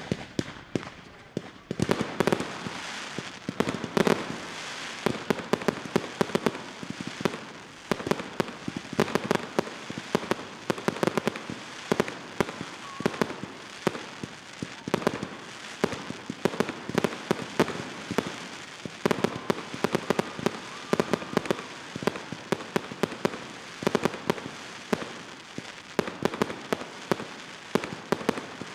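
Professional fireworks display firing fast: a dense run of sharp bangs and cracks, several a second, over a steady crackling hiss, thickening about two seconds in and holding up.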